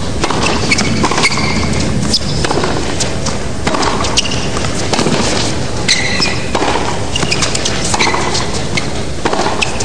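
Tennis rally on a hard court: a run of racket hits on the ball, with short rubber sneaker squeaks between the strokes, over steady broadcast crowd noise.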